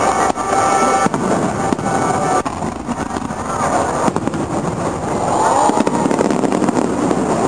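Aerial firework shells bursting in the sky: a string of sharp booms at uneven intervals over a continuous din.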